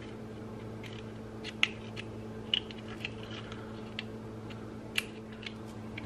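Light clicks and taps of clear plastic germination domes being set onto the seed pods of a countertop hydroponic garden, roughly one a second, over a steady low hum.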